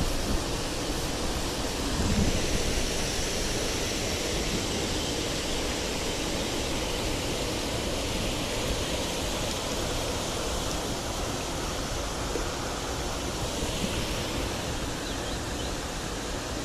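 Steady rush of water spilling over a small weir into a stream pool.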